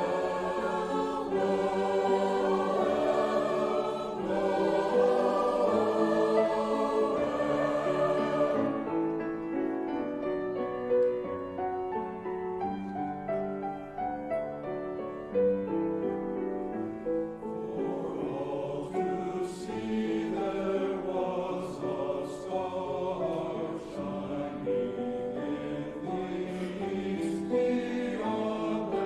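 Voices singing together, a hymn in a church service.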